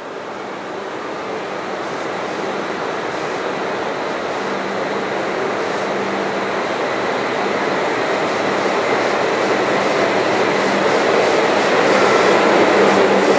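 E5 series shinkansen pulling out of the station, its running noise of motors and wheels growing steadily louder as it gathers speed past the platform.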